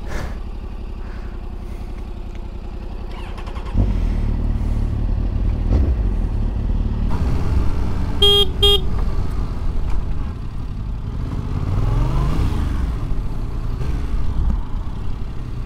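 Yamaha R7's 689 cc parallel-twin engine on its stock exhaust, running under way and getting louder about four seconds in as the throttle opens. A vehicle horn sounds twice, briefly, about halfway through.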